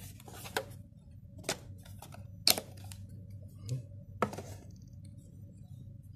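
Short sharp plastic clicks and taps as a GoPro Hero 7 Black in its mounting frame and its packaging are handled, about five in all, the loudest about two and a half seconds in.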